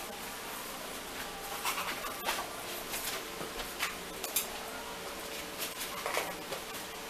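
Light handling sounds of paper towels and tableware on a table: scattered small clicks, taps and short rustles between about a second and a half and six and a half seconds in, over a faint steady hum.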